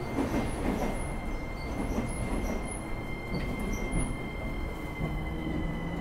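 Running sound inside a JR East E231-1000 series commuter train car: steady wheel-and-rail noise under a thin, steady whine from the unrenewed car's original traction inverter, sinking slowly in pitch.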